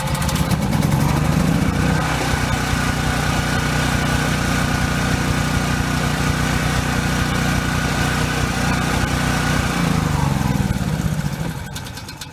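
Cummins Onan 2800-watt gasoline generator running just after starting, its pitch rising to speed in the first couple of seconds and then holding steady. About eleven seconds in it is shut off and winds down.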